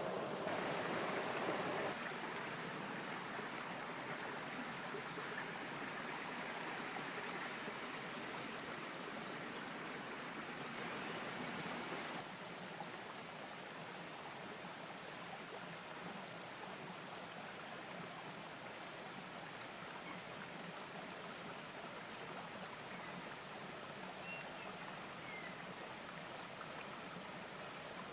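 Steady rush of river water flowing, with no distinct events in it. The level drops in steps about two seconds in and again about twelve seconds in.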